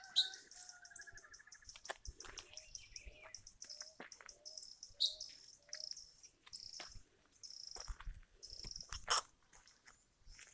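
Birds chirping and calling: a long run of short high chirps with a short lower note repeated about a dozen times, and a brief trill near the start. Occasional crunching footsteps sound through it.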